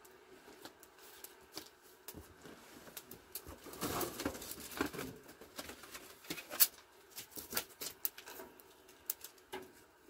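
Irregular sharp crackles and clicks from a wood fire and firewood being fed into it, busiest around four to five seconds in, with one louder snap between six and seven seconds in.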